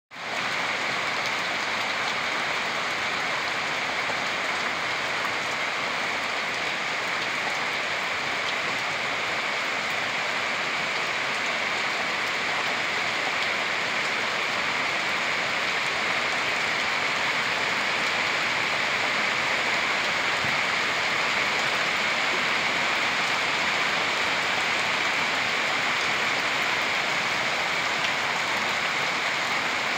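Heavy tropical rain pouring down steadily, an even, unbroken hiss of rain on the ground and the standing floodwater.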